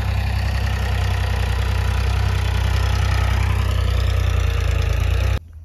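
An engine running steadily with a low hum, cut off abruptly near the end.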